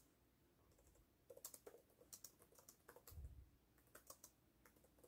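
Faint typing on an HP laptop keyboard: irregular soft key clicks in short runs. A soft low thump comes a little after three seconds in.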